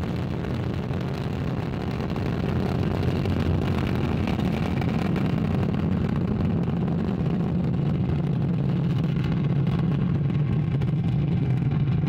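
Ariane 5 ECA rocket lifting off: the Vulcain main engine and its two solid rocket boosters firing together. A steady deep rumble that grows slightly louder as the rocket climbs.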